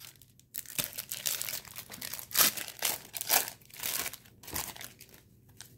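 A football card wax pack being torn open by hand, its wrapper crinkling in a run of short, irregular rustles.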